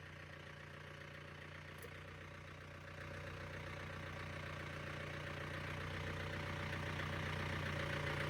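John Deere 4600 compact tractor's diesel engine running steadily, growing gradually louder from about three seconds in as it works the load.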